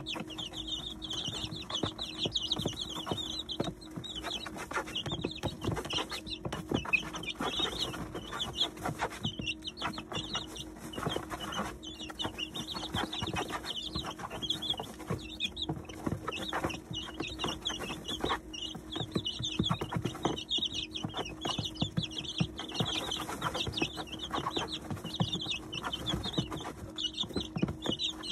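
A flock of 19-day-old chicks peeping continuously in short, high notes while pecking at feed, with many quick pecking ticks against a faint steady hum.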